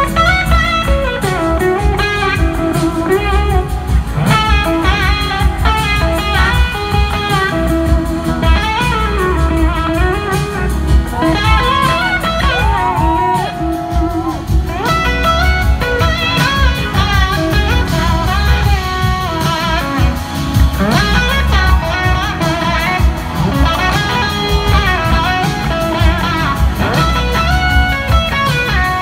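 Live blues-rock band playing an instrumental passage, led by an electric slide guitar whose notes glide up and down over bass, drums and keyboards.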